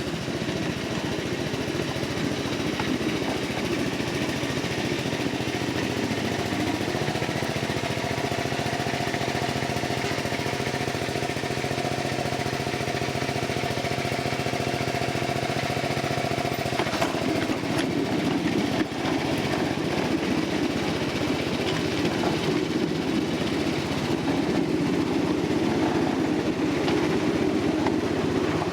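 A 1/8-scale riding train running along its track, with steady mechanical running noise. A faint steady squeal runs through the middle, and a few sharp clicks come near the two-thirds mark.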